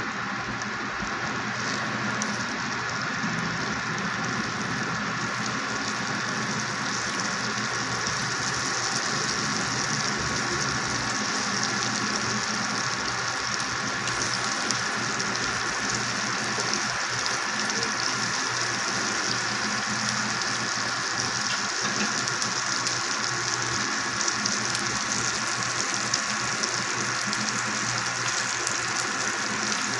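Salmon steaks frying in butter in a frying pan: a steady sizzle with scattered crackles, growing a little louder over the first several seconds.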